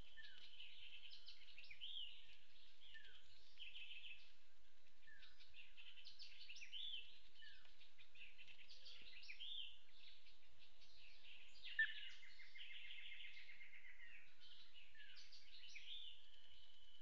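Several birds calling and singing together in forest. A short down-slurred note recurs every two to three seconds among higher chirps and phrases, and a rapid trill begins with a loud sharp note about twelve seconds in.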